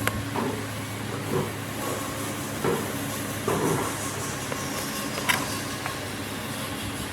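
Wood lathe motor running with a steady low hum, with short sharp knocks and brief scraping sounds at irregular intervals, the loudest about five seconds in.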